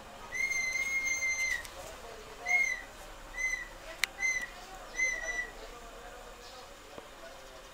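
Whistled notes at one high, steady pitch: one long note of about a second, then four short notes, with a single sharp click between the short notes.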